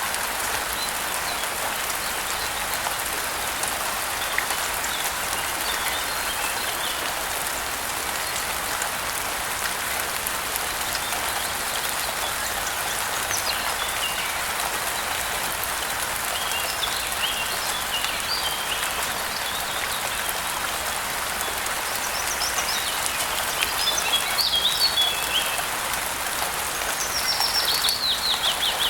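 Steady rain falling, with birds chirping on and off over it. The chirps come more often in the second half, and a quick run of falling notes is heard near the end.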